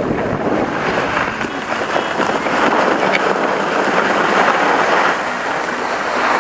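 Skiboards sliding and scraping over packed snow during a run, a steady rushing hiss that swells in the middle, mixed with wind buffeting the microphone.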